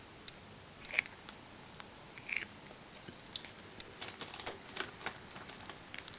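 Russian tortoise biting and chewing raw bean sprouts. There are crisp crunches about a second in and again after two seconds, then a quicker run of small crunchy bites through the second half.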